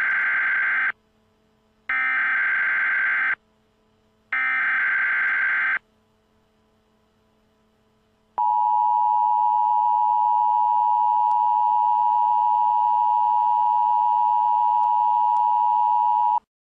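Emergency Alert System opening: three shrill bursts of SAME digital header data tones, each about a second and a half long with short gaps, then about 8 seconds in the steady two-tone EAS attention signal, a harsh held beep that cuts off sharply near the end. This marks the start of an emergency alert broadcast.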